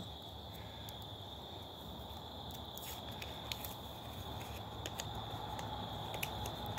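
Faint outdoor ambience: a steady high insect drone over a low rumble, with scattered small clicks and ticks from hands working a roll of blue painter's tape.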